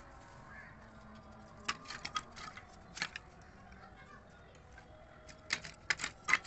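Dry split wooden sticks being laid crosswise into a metal havan fire box, with light wooden clacks as stick knocks on stick and on the box. There are a few scattered clacks, then a quick run of them near the end.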